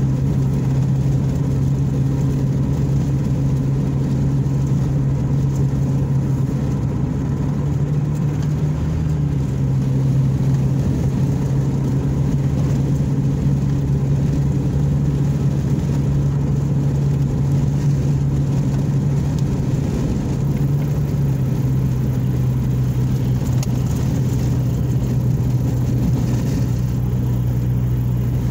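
Vehicle engine and road noise heard from inside the cabin while driving at a steady speed. It is a steady low drone that rises a little in pitch twice, about eight seconds in and again near twenty seconds.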